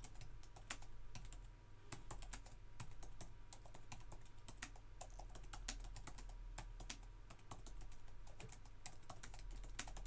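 Touch-typing on an Apple Magic Keyboard for the iPad Pro, its scissor-switch keys giving a quick, irregular run of soft clicks. A nice quiet keyboard.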